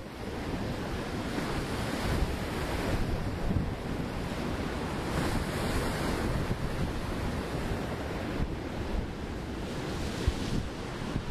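Surf breaking on a shingle and driftwood shore, rising and falling as the waves come in, with wind buffeting the microphone. One wave breaks hard near the end.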